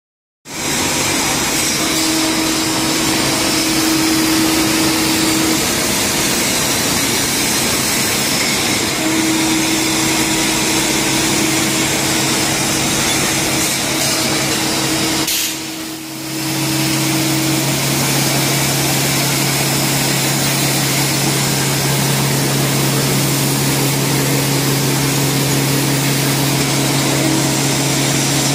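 Automatic two-side servo labelling machine and surrounding factory machinery running: a steady, dense mechanical noise with a faint on-and-off hum. It dips briefly about halfway through, after which a steady low hum joins in.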